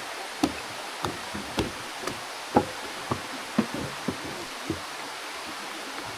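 Footsteps going down steps in an even rhythm of about two a second, each a sharp knock, over the steady rush of the waterfall.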